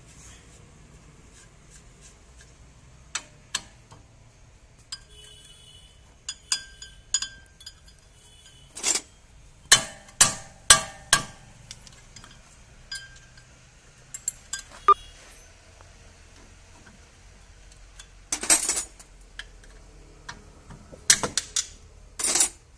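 Hand tools and metal parts clinking and knocking against a car's front wheel hub and brake assembly. There are scattered light clinks, a run of sharp metal knocks about ten seconds in, and more knocks near the end.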